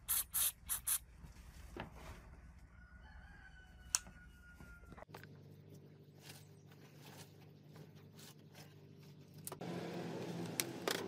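Screwdriver scraping and prying at the rusted carbon-brush holder of an old Makita angle grinder: a few short rasps near the start and a sharp metal click about four seconds in. A longer sustained sound comes near the end.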